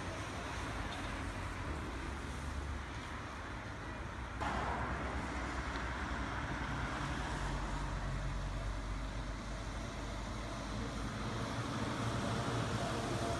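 City road traffic with trolleybuses running past on their overhead wires: a steady rumble of tyres and motors. About four and a half seconds in the sound jumps suddenly louder, and a trolleybus towing a trailer draws near and passes close.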